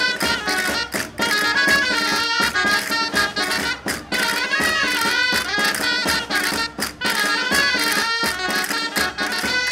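Dulzainas, the Castilian double-reed shawms, playing a lively folk dance tune live, over regular drum strokes.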